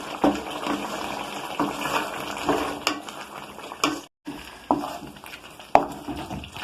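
Liver pieces in masala cooking down in an open kadai, sizzling and bubbling as a spoon stirs them, with several sharp knocks of the spoon against the pan. The liquid is being reduced. The sound cuts out briefly about four seconds in.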